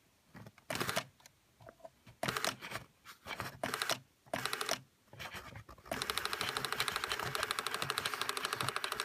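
Sega SP-400 printer plotter's ALPS paper-feed stepper motor turning the platen on line feed: a few short mechanical whirring bursts, then from about six seconds in a steady, fast, even rattle lasting about three seconds.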